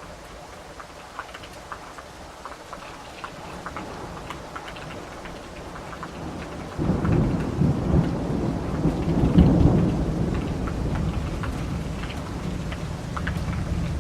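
Steady rain with individual drops ticking. About halfway through, a roll of thunder breaks in suddenly, swells over a few seconds, then rumbles slowly away under the rain.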